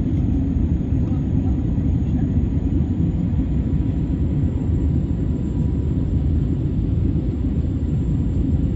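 Steady low rumble of engine and airflow noise inside an airliner's passenger cabin, with a faint high steady whine above it.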